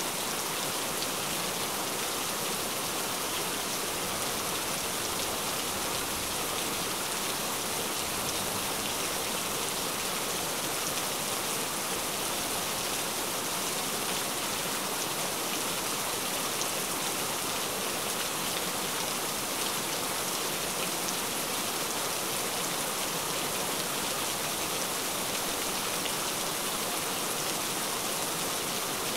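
Steady rain: an even, continuous hiss with the fine patter of individual drops.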